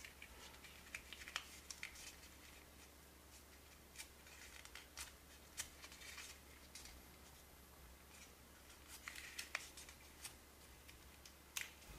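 Origami paper being folded and pulled by hand: faint, scattered crinkles and soft ticks of the paper, in a few small clusters.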